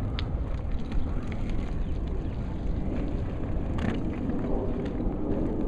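Steady rolling rumble of wheels on a concrete sidewalk, mixed with wind on the microphone, with a few light clicks.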